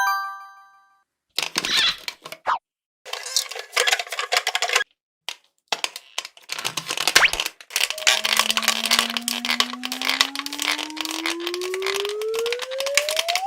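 Crackling and crunching in three bursts, the last and longest running to the end: a frozen mesh stress ball being squeezed. A short chime rings at the start, and about eight seconds in a slide-whistle-like tone begins to climb steadily in pitch.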